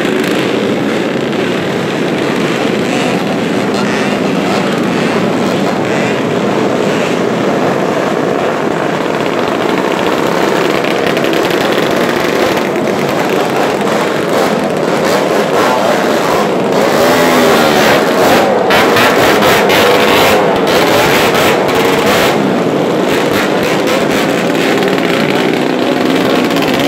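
Many small motorcycles and scooters riding past in a long convoy, their engines running and revving together in a continuous din, a little louder about two-thirds of the way through.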